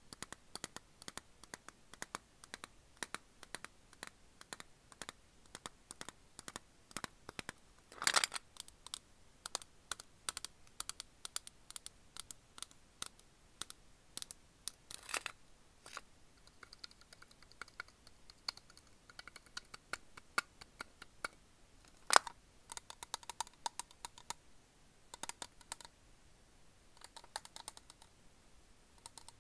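Fingertips and nails tapping and scratching on a Sakuma Drops tin: rapid light clicks, with a louder cluster about eight seconds in and a single sharp click about 22 seconds in.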